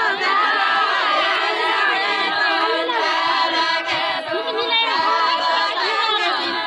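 Group of women singing a deuda folk song unaccompanied, many voices overlapping, with talk mixed in among them.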